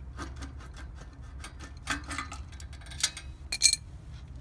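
Light metallic clicks and ticks of an adjustable wrench working a bicycle rear wheel's axle nut as the wheel is loosened and handled, with a few sharper metal clinks near the middle and about three and a half seconds in.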